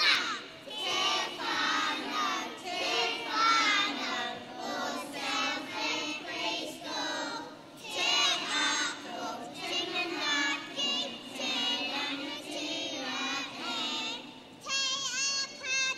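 A group of preschool children singing together.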